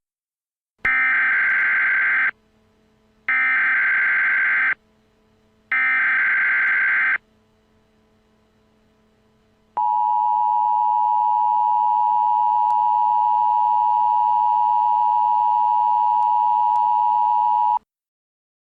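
Emergency Alert System signal announcing a child-abduction Amber Alert: three short bursts of buzzing digital data tones (the SAME header), a pause, then the two-pitch EAS attention tone held steady for about eight seconds before it cuts off.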